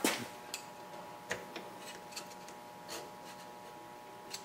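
Light, irregular metal clicks and scrapes of a screwdriver working piston rings into a Quincy air compressor cylinder by hand, without a ring compressor. There are about seven sharp ticks, the loudest right at the start.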